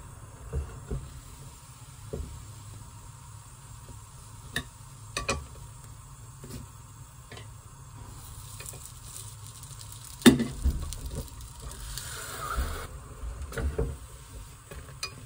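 Croissant dough sizzling as it is laid into a hot stovetop waffle pan, for a few seconds from about eight seconds in. Metal clicks and knocks from the pan and tongs, with a loud sharp clank about ten seconds in.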